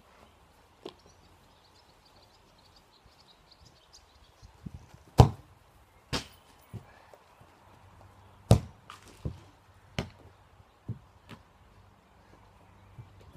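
A football being kicked hard about five seconds in, followed by a string of duller thuds as the ball lands and bounces away; the shot misses the crossbar.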